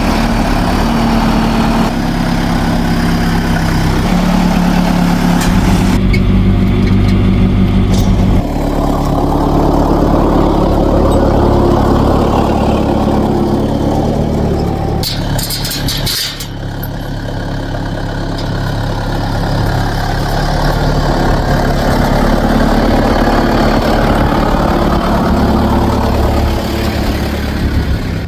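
A vehicle engine running steadily, its pitch shifting a few times early on, with a brief clatter about fifteen seconds in.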